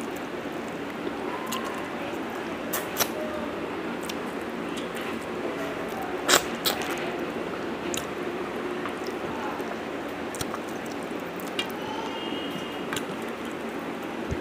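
Fingers scraping and mashing the last of the rice and dal across a stainless steel plate: soft sticky squishing with a few sharp clicks against the metal, the loudest about six seconds in, over a steady background hiss.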